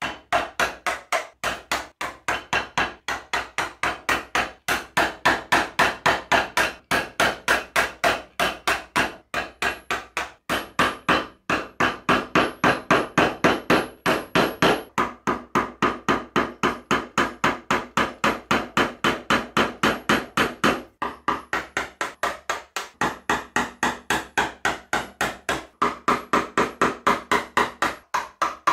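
Wooden mallet striking a chisel in quick, steady blows, about three or four a second, as it chops a mortise through a spalted maple block. The rhythm pauses briefly a few times.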